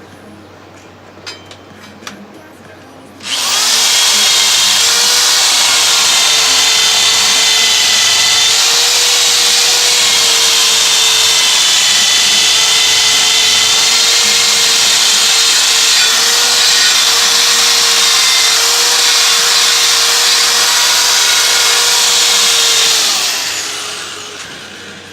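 A handheld power sanding tool running steadily for about twenty seconds, with a constant whine over the grinding noise, then winding down near the end. It is sanding the bead seat of a wheel rim clean so a new tire will seal on it.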